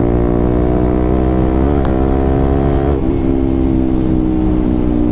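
KTM RC 200's single-cylinder engine running loud through an SC Project aftermarket exhaust while riding along, with a short blip of revs about two seconds in and the pitch settling a little lower after about three seconds.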